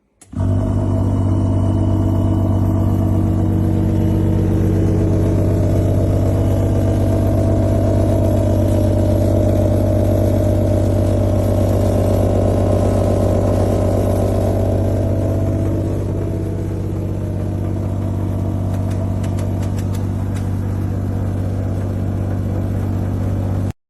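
A loud, steady engine-like drone with a strong low hum. It starts and cuts off abruptly and eases slightly about two-thirds of the way through.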